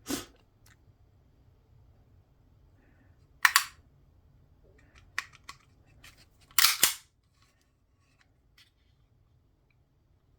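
Sharp metallic clicks and clacks of a 9mm pistol's action being worked by hand, with louder clacks about three and a half and six and a half seconds in and small ticks between.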